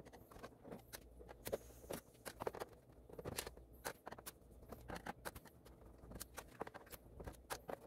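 Faint, irregular clicks and taps of a small screwdriver and screws against the plastic back cover of a flat-screen TV as the cover screws are removed.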